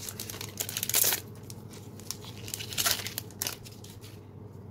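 Foil wrapper of a trading-card booster pack crinkling and tearing as it is opened, with a few sharp rustles, the loudest about a second in and near three seconds, then quieter card handling.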